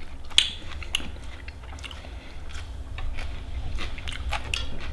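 A person chewing a mouthful of papaya salad, with scattered short crunches and clicks, over a steady low hum.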